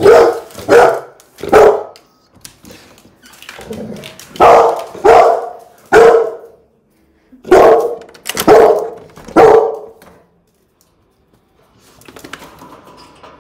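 Yellow Labrador retriever barking: nine short, loud barks in three groups of three, a dog asking to be let out to go downstairs.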